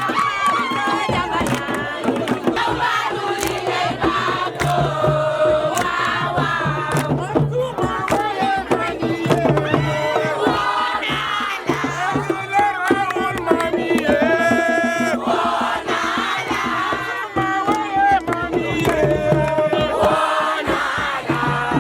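A crowd of voices singing and chanting together, with frequent sharp percussive hits.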